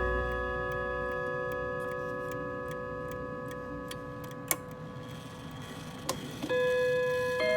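Antique mechanical clock's chime playing the school dismissal-bell tune. Struck notes ring and slowly fade while the clock ticks and its works give a couple of sharp clicks, then new chime notes strike about a second before the end.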